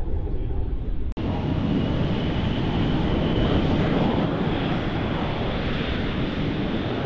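Blue Angels F/A-18 Super Hornet jet engines running as the jets taxi: a steady loud jet rush with a faint high whine. The sound breaks off for an instant about a second in, at a cut, and then carries on.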